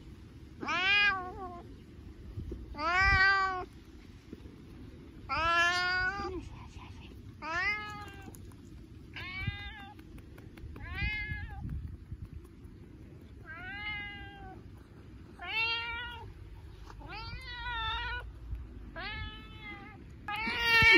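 Domestic tabby cat meowing over and over, about a dozen short meows at intervals of a second or two, the first few loudest.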